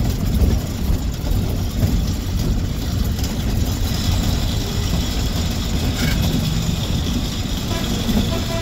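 Bus engine running as the bus moves slowly, heard from inside the cab: a steady low rumble with road and traffic noise around it.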